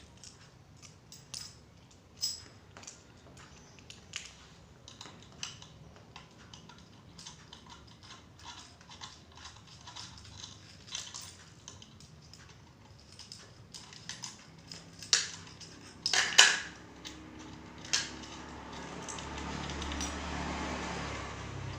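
Light clicks and taps of small metal parts being handled, with a few louder knocks about three quarters of the way through, then a rising rustling noise near the end.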